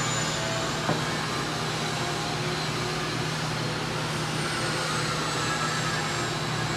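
Steady background hum and hiss from a running machine, with one light click about a second in.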